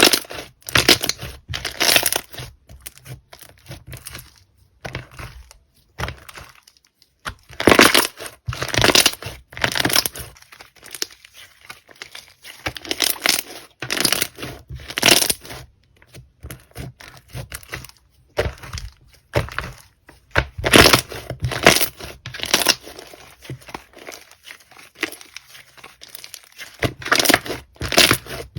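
Slime being squeezed and pressed by hand, giving irregular bursts of crackling and popping with short pauses between them.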